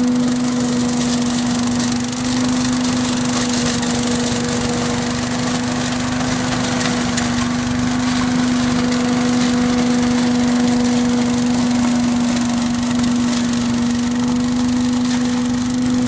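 Billy Goat K-Series self-propelled lawn vacuum, its Briggs & Stratton engine running at a steady, unchanging speed, with the rush of air from the vacuum as it is pushed over leaves.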